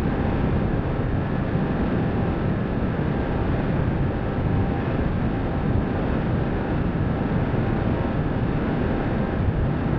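Bixler RC plane in flight, heard from its onboard camera: steady wind rushing over the microphone, with a faint steady hum from the electric motor and propeller.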